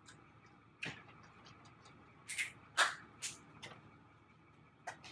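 Hand slaps and claps of an elaborate two-person handshake: about six short, sharp smacks at uneven intervals, with quiet between them.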